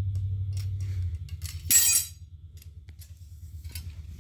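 Metal ramrod clicking and scraping in a muzzleloader barrel as it pushes the bullet, sabot and powder pellets out through the open breech, with a brief louder metallic clatter about two seconds in, over a low steady hum.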